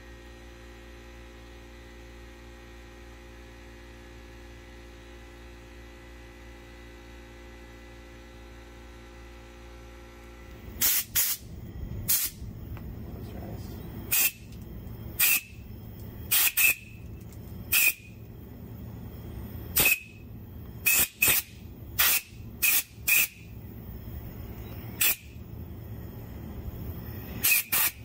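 A steady electrical hum, then from about ten seconds in more than a dozen sharp clicks at uneven intervals over a light hiss.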